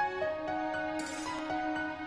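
Soft background music: a gentle melody of held notes, moving to a new pitch every half second or so.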